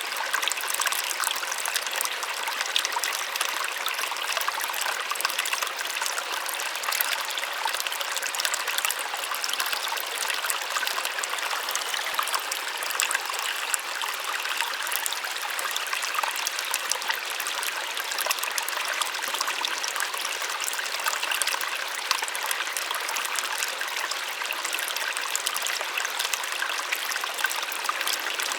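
Small waterfall splashing steadily, a soft even rush of falling water without deep rumble.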